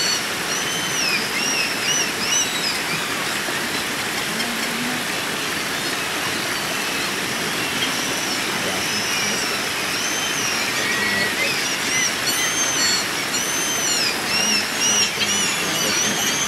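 Creek water rushing steadily over logs and rocks, with repeated short, high chirping calls early on and again near the end.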